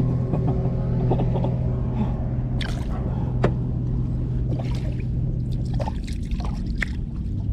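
A boat engine droning steadily, dropping away about six seconds in, with water splashing and lapping and a few small knocks.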